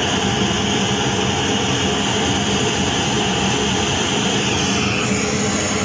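Pink noise test signal played steadily through a sound-system speaker: an even, unbroken hiss across the whole range, used to measure the speaker's frequency response on a phone real-time analyser (RTA) app while setting the equalizer.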